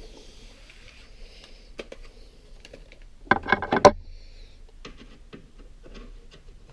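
Scattered small clicks of parts being handled while a glass-scale linear encoder is taken apart, with a short, loud rattling clatter a little over three seconds in.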